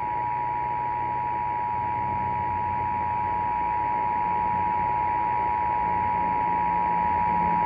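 Emergency Alert System attention signal: two steady tones sounded together without a break, the standard signal that an emergency alert message follows, here an evacuation order.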